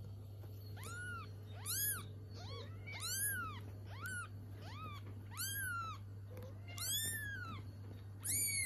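Newborn kitten mewing, high-pitched calls about once a second, each rising then falling in pitch: the contact call of a kitten separated from its mother.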